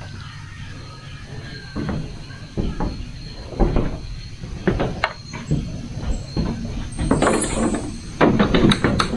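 Irregular wooden knocks and clatters of someone moving about on a slatted wooden floor and handling a wooden wall or door. The knocks grow busier and louder near the end.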